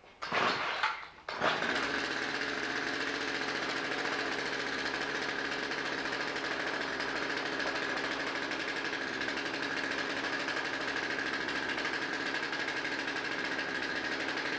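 Two short rasping noises, then about a second and a half in a motor catches and runs on at a steady, unchanging speed: a constant high whine over a dense rattling drone, with no revving.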